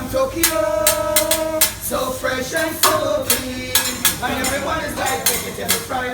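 Background music: a vlog track with a steady beat under a held melody.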